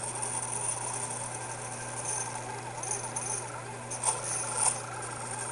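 CNC-converted Taig mini lathe running and cutting a small mammoth-ivory workpiece: a steady motor hum under a whine that wavers in pitch as the stepper-driven tool moves, with two sharp clicks a little past four seconds in.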